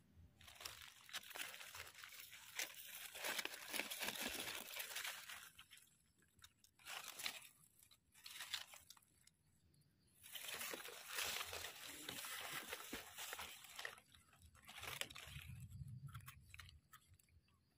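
Dry leaf litter crackling and soil scraping as gloved hands dig a wild mushroom out of the forest floor, in several bursts with short quiet gaps. Near the end a knife blade scrapes dirt off the mushroom's stem base.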